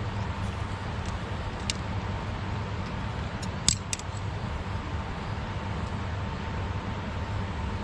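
Steady rush of a flowing river, with a few short light clinks, the loudest a little under four seconds in.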